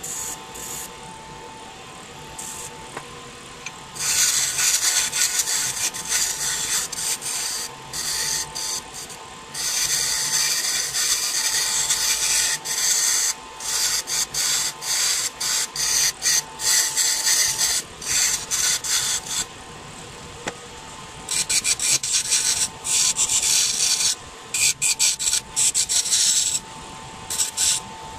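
Midi wood lathe running with a steady whine while a hardwood blank spins and is worked against, giving a hissing, scraping rasp: long passes in the first half, then quick short strokes, with a brief lull a little past two-thirds of the way.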